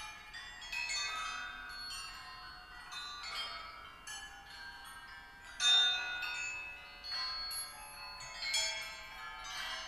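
Hung metal hammers of a hammer-harp installation struck and ringing like chimes: a series of overlapping, ringing metallic notes, the loudest strike a little before six seconds in.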